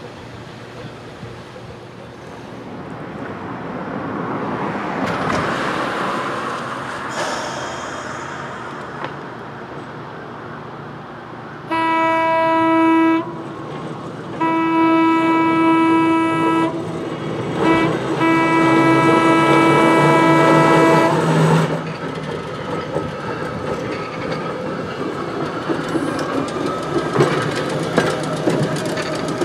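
Philadelphia Suburban Transportation trolley No. 76 sounding its single-note horn in the grade-crossing signal: long, long, short, long. Before the horn the car's running rumble grows as it approaches, and after it the wheels rumble and click over the rails as it rolls past.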